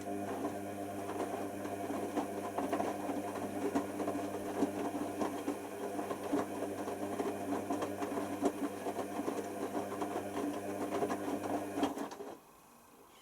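Hoover Nextra washer dryer running, a steady motor hum with a rattling, crackling texture over it, which stops abruptly near the end.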